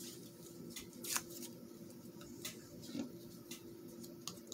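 Quiet paper rustling with a few light ticks as small torn paper scraps are handled and pressed on with a glue stick.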